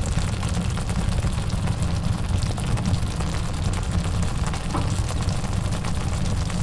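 Vegetables in korma simmer sauce sizzling and bubbling in a cast-iron skillet, with many small pops and crackles, over a steady low rumble.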